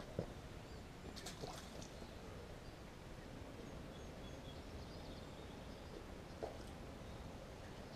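Quiet outdoor ambience by open water: a faint steady low rumble, a single sharp click just after the start, and a few brief high chirps about a second in.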